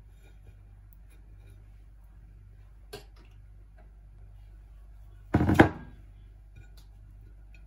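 Faint clicks of a table knife against a ceramic plate while jam and butter are spread on scones, over a low steady hum. About five seconds in comes one loud knock lasting about half a second.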